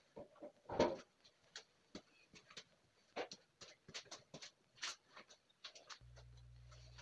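Faint scattered clicks and taps of parts being handled on a workbench, with one louder knock about a second in; a low steady hum comes in near the end.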